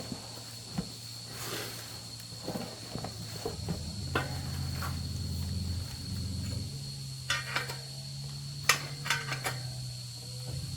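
Scattered metal clinks and knocks of hand tools being handled and set down, the sharpest near the end, over a steady low hum and a constant thin high tone.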